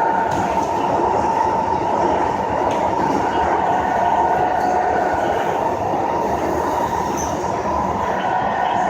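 SMRT C151 metro train running between stations, heard inside the car: a continuous rumble of wheels on the track with a steady whine from the drive.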